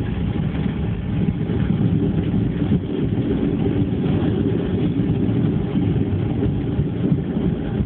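Airliner cabin noise after landing: a steady low rumble of the jet engines and airframe, heard from inside the plane.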